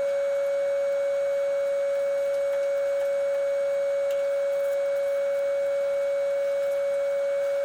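A steady, unchanging tone at one mid pitch, like a continuous beep, over a faint hiss.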